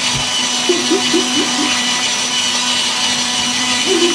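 Motorized toy construction train's small electric motor running with a steady whir as it travels around its track, heard up close from a camera riding on one of its carriages.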